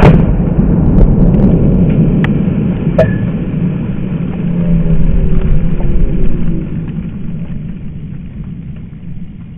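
Tannerite binary exploding target detonating close to the microphone: a sudden loud blast that turns into a long low rumble, fading over the last few seconds.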